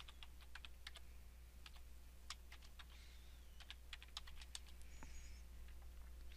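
Faint, irregular keystrokes on a computer keyboard as a password is typed, a quick run of clicks with short pauses.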